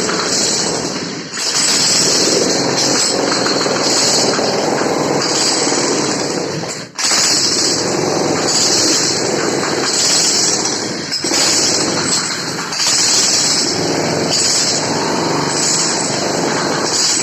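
Jackhammer (demolition breaker) running continuously, hammering at a rapid rate, with brief interruptions about a second in, a sharp near-stop around the middle, and another short break about two-thirds through.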